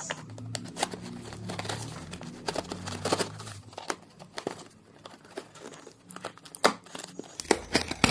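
Serrated knife cutting the packing tape on a cardboard box, then the taped flaps being torn open: irregular scraping, tearing and crinkling with sharp snaps, thickest near the end.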